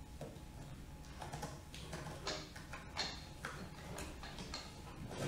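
Scattered light clicks and rustles of objects, including a toy drum, being handled and packed into a cardboard box, over a faint steady low hum.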